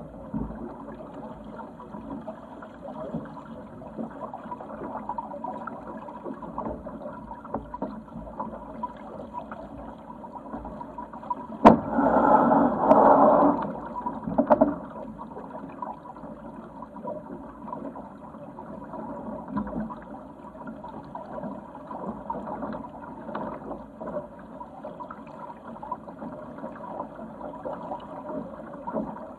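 Water gurgling and sloshing along the hull of a Sigma 8 metre sailing yacht under way. About twelve seconds in there is a sharp knock, followed by a couple of seconds of louder rushing.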